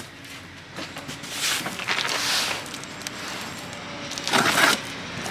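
Cardboard box being handled with rustling scrapes, then a box cutter slitting the packing tape across its top: a short, loud ripping rasp near the end.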